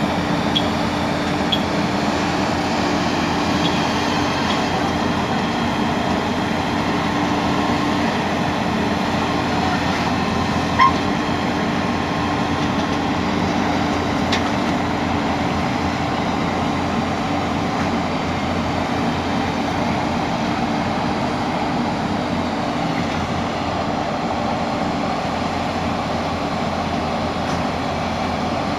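Heavy diesel engine of a Tata Hitachi excavator running steadily under load, with one brief sharp squeak or knock about eleven seconds in.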